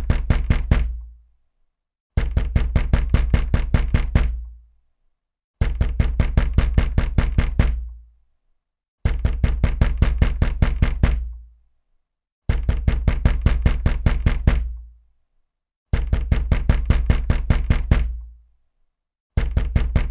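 Heavy, loud banging on a wooden door: volleys of rapid fist bangs, each lasting about two seconds, repeating about every three and a half seconds with a short silence between.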